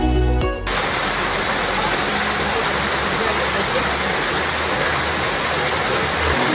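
Steady rushing and splashing of a small waterfall cascading over rock ledges. It cuts in suddenly under a second in and stops just before the end, with soft background music faintly under it and alone at the very start.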